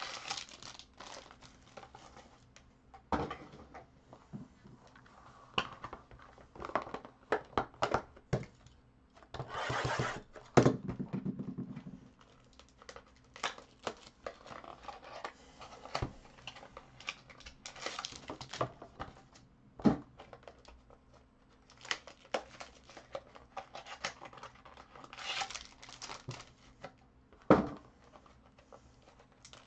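Foil trading-card pack wrappers crinkling and tearing in irregular bursts, longest about a third of the way in, with a few sharp knocks of small cardboard card boxes being set down on the table.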